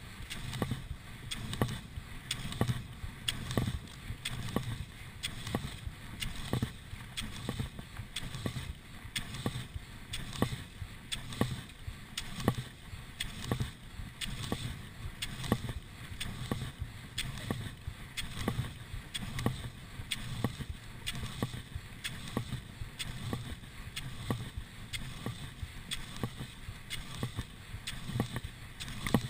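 Cross-country skiing in classic tracks: poles planting in firm snow in a steady rhythm of sharp crunches, with the skis swishing along the groomed tracks between strokes.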